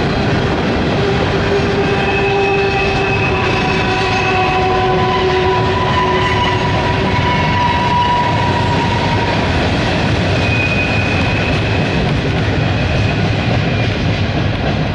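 Freight train of open-top gondola cars rolling steadily past: a loud, continuous rumble and rattle of steel wheels on rail. Long, steady squealing tones from the wheels come and go over it.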